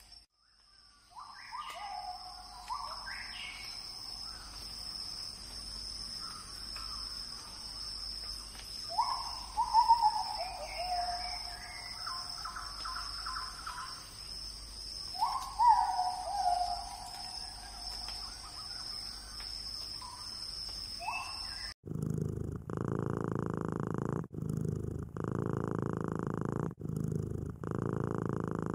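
Birds calling, a scattering of short falling calls with two louder ones near the middle, over a faint steady high-pitched whine. About three-quarters of the way through this gives way to a kitten purring in a steady rhythm, with a brief break at each breath.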